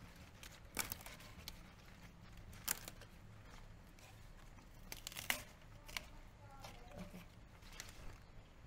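Faint scattered clicks and crinkling rustles over a low steady hum, with sharper ticks about a second in, near three seconds and around five seconds.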